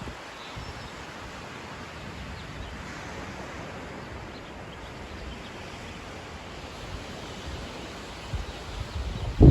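Pacific Ocean surf: a steady wash of waves, with a few low rumbles near the end.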